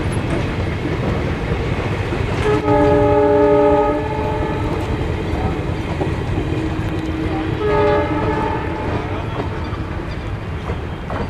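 WDM-2A diesel locomotive sounding its horn twice, each blast a second or so long, over the steady low rumble of the engine and train getting under way.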